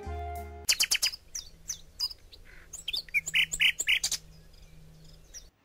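Small songbirds chirping in many quick, short, high calls: a stock birdsong effect setting a morning scene. A background music chord ends under a second in, and the chirping stops about four seconds in.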